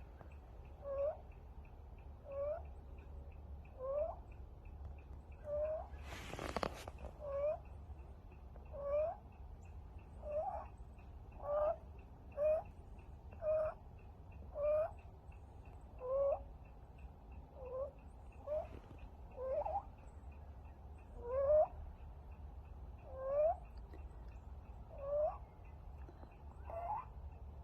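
A kitten making a squeaky, chirping wheeze with every breath, each one rising in pitch, roughly one every second and a half. The sign of a kitten struggling to breathe after an upper respiratory infection. A short burst of noise comes about six seconds in.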